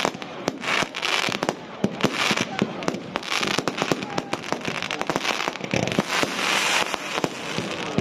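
Fireworks display: many sharp bangs of shells launching and bursting, several a second, over a continuous crackling hiss.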